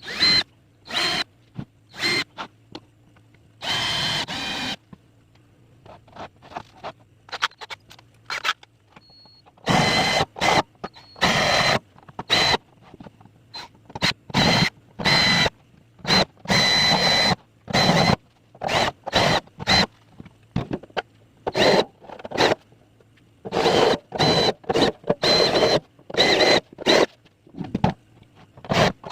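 Electric hand drill boring holes in an amplifier box, heard in many short, chopped bursts, several of them with a steady high whine.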